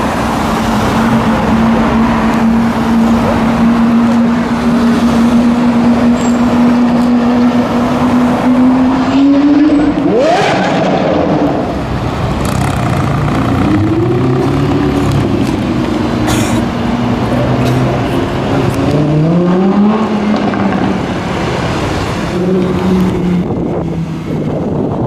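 Supercar engines, among them a Lamborghini Huracán's V10, accelerating away past the roadside. A steady engine drone gives way to a sharp rev about ten seconds in, followed by several engine notes climbing and dropping as the cars pull away through the gears, with a few sharp cracks.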